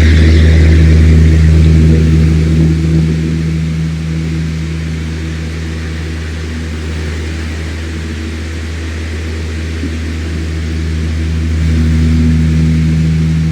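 Electric fan running: a steady low motor hum under a rush of moving air. The air rush is louder for the first few seconds, eases off, then swells again near the end.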